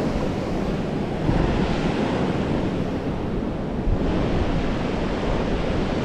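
Wind buffeting the microphone: a steady rushing noise, heaviest in the low end, that swells a little about a second in and again near four seconds in.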